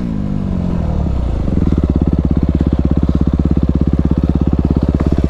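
Dirt bike engine coming off high revs, its pitch falling over the first second or so, then settling into a steady, evenly pulsing idle.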